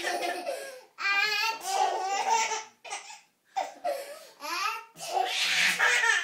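Baby laughing in a run of hearty belly laughs, broken by a short pause about three seconds in.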